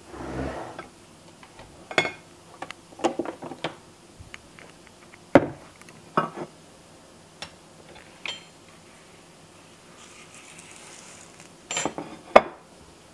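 Dishes and cutlery being handled on a kitchen counter: a plate, knife and cutting board set down and picked up. The result is scattered clinks and knocks, some briefly ringing, with the sharpest about five seconds in and two more near the end.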